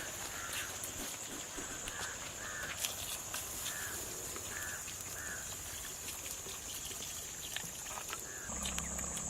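Crows cawing, a string of short calls about a second apart, over a steady high-pitched drone. A single knock about three seconds in, and a low hum comes in near the end.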